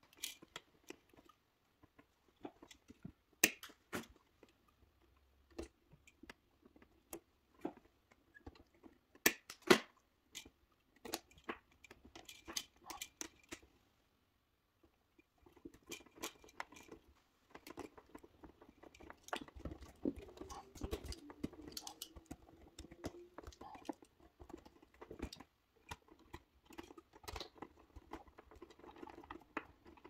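Close handling of electrical wiring: copper wires, plastic wire nuts and a wall switch clicking and rustling in the hands as connections are made, with scattered sharp clicks, two louder ones about 3 and 10 seconds in. From about halfway the rustling gets denser as the wires are pushed into the plastic switch box.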